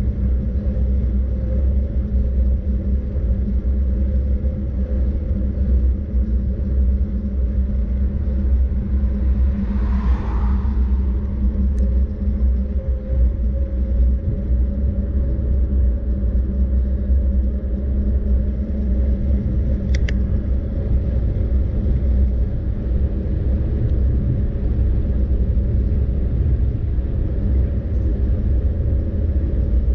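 Steady low rumble of a vehicle in motion, with a brief swell of higher noise about a third of the way through.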